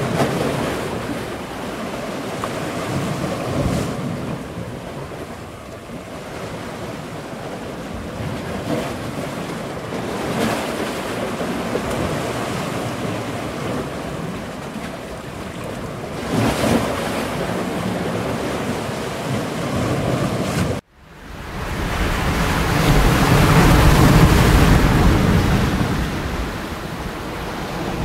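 Ocean waves washing in a steady noise that swells and fades. About three-quarters of the way through the sound cuts out for an instant, then returns louder.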